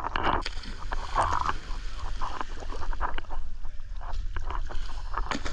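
Sea water lapping and splashing at the surface beside a dive boat as scuba divers jump in, with irregular splashes and crackles over a steady low rumble.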